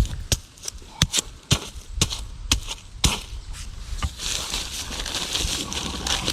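A series of sharp knocks, about two a second, from work on the fence, then a grainy scraping hiss from about four seconds in.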